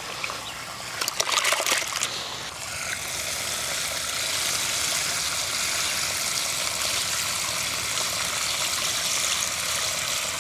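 Hands swishing and splashing soaked urad dal in water in a large aluminium pot. From about three seconds in, the milky rinse water pours out of the tipped pot in a steady stream onto the ground.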